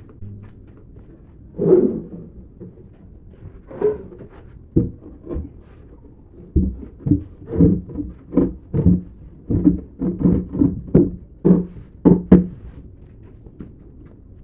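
Dull knocks on solid sonokeling (rosewood) parts during assembly of a round wooden table. A few scattered knocks come first, then from about six seconds in a run of roughly two knocks a second.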